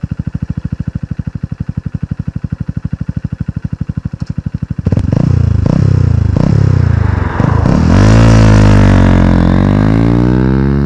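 Honda CBF motorcycle with an aftermarket Akrapovič exhaust idling with an even, fast pulse, then revved in several short blips about five seconds in. It then pulls away under hard acceleration, loud and continuous, its pitch dipping and climbing again.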